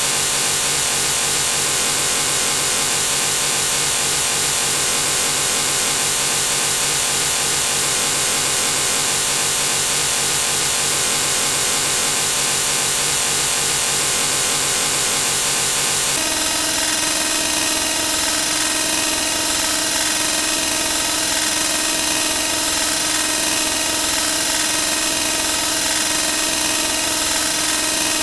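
Sound effects repeated so rapidly that they blur into one continuous buzzing drone. Its tone changes abruptly about 16 seconds in.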